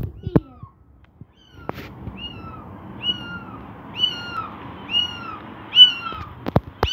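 Tabby kitten mewing repeatedly while held up, a string of high, arched mews about one a second. There are a few sharp clicks near the start and end.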